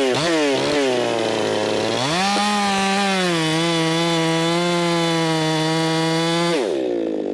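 Race-built Echo 4910 two-stroke chainsaw at full throttle making a test cut while its carburettor mixture is tuned in the wood. The engine note wavers for the first couple of seconds, rises and holds steady under load, then drops back toward idle near the end.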